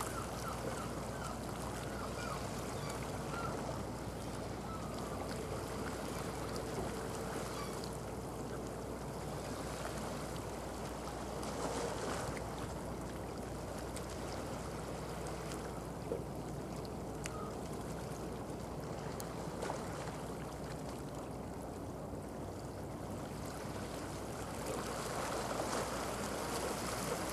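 Steady seaside ambience: a constant wash of water and wind noise with a faint low hum beneath it, swelling a little about twelve seconds in and again near the end.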